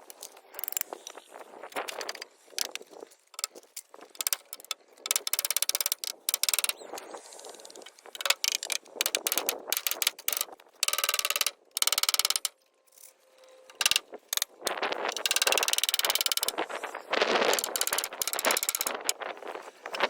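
Building work: a busy run of clicks and knocks, broken by several bursts of rapid rattling that last a second or two each, the longest near the end.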